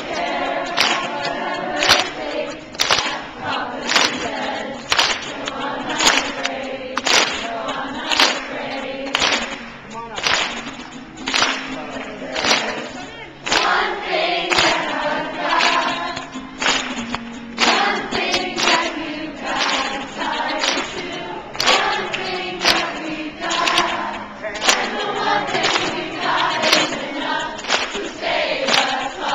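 A crowd singing along to a song led by a man strumming an acoustic guitar, with a sharp steady beat about twice a second running under the voices.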